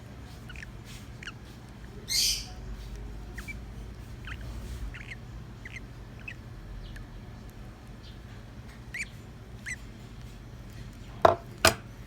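Young African lovebirds giving scattered short, high chirps, with a loud, harsh rasping burst about two seconds in. Two sharp clicks come near the end, the loudest sounds in the stretch.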